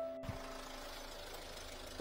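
Low, steady rumble of an idling vehicle engine with faint street noise; a held music note fades out in the first moment.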